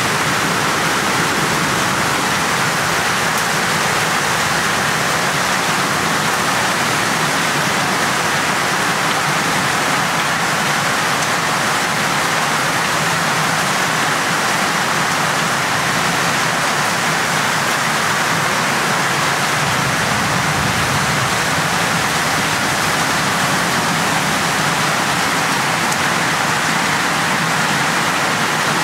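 Heavy downpour: rain falling hard and steadily on standing water and wet ground, an even hiss that does not let up.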